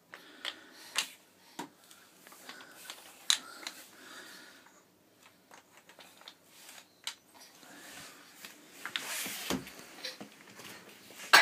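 Wooden toy blocks and a wooden block train being handled, giving scattered light clacks and knocks at irregular intervals, with a brief rustle of handling about nine seconds in.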